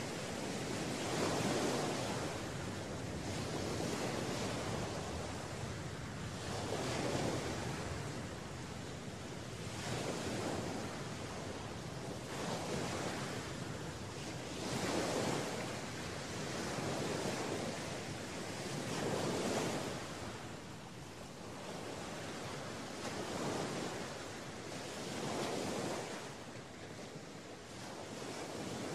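Ocean surf: waves breaking and washing in, a steady rush of noise that swells and fades every two to four seconds.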